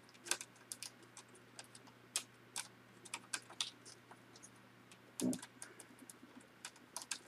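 Light, irregular clicks and ticks of a small screwdriver and fingers working on the grounding screw and plastic parts of a Dell Vostro 1100 laptop's hinge area, with one duller knock about five seconds in.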